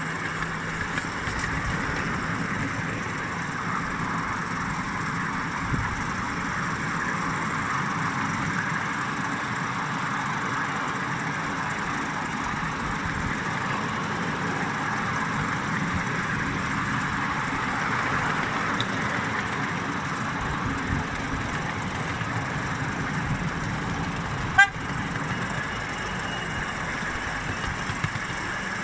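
Miniature railway locomotive running along the track with the train in tow: a steady rumble and hiss of wheels on rail and drive. A single sharp knock sounds near the end.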